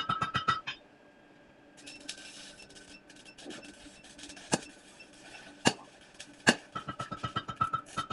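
Hand hammer, about 2.5 pounds, striking a punch to drive a hole through a steel bar. A fast run of ringing blows at the start, a few single strikes in a quieter middle stretch, then rapid ringing blows again from about two-thirds of the way in.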